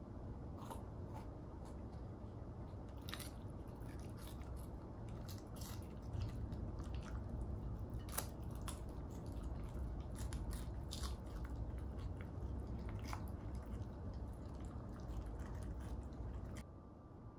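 A puppy chewing a green vegetable pod, with irregular crisp crunches and clicks that are busiest between about three and eleven seconds in. Under them is a low steady rumble that drops away near the end.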